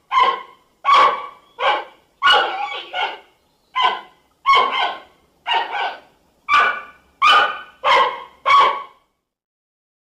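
Giant panda calling: a run of about eleven short calls, roughly one a second, a few of them doubled.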